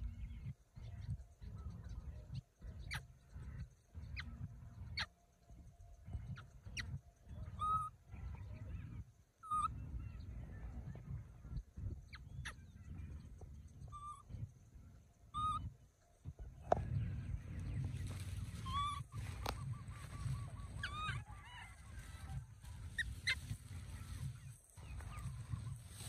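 Baby monkey giving short, high, honk-like cries, one every second or two and coming more often in the second half, over a low rumble.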